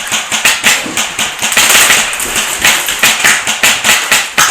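Airsoft guns firing: an irregular string of sharp cracks and pops, several a second, bunching together around the middle.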